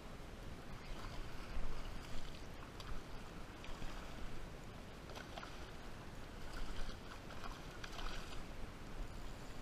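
Water splashing and lapping in irregular small bursts over a low, steady rumble of wind on the microphone.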